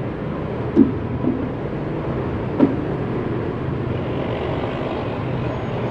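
Steady low rumble of distant engine noise, with a few short faint blips about a second in and again near three seconds.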